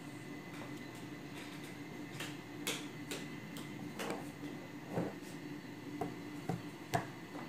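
Hands handling soft bread dough from a plastic-wrapped bowl: scattered light clicks, crinkles and a few soft knocks on the counter, irregular and growing more frequent from about two seconds in, over a faint steady hum.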